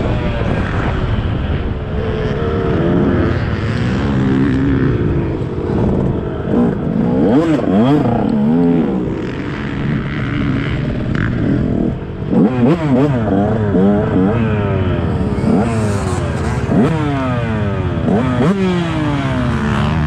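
Motocross bike engine revving up and easing off again and again under hard riding, its pitch climbing and dropping with each burst of throttle and gear change, the changes coming quicker and closer together in the second half.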